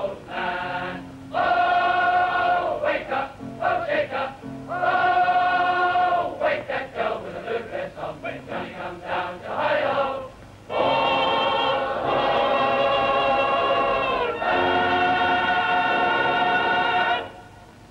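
A choir singing a song in short phrases, ending on two long held chords before stopping.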